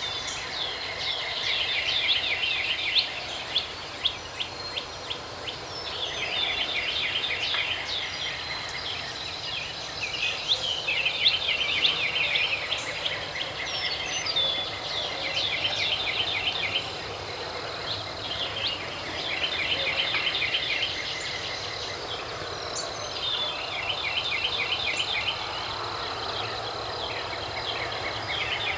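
Songbirds singing, with phrases of rapid chirps or trills every few seconds, over a steady thin high-pitched whine.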